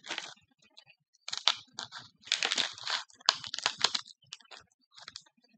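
Plastic snack packaging crinkling and rustling as it is handled and rummaged through, in several irregular bursts.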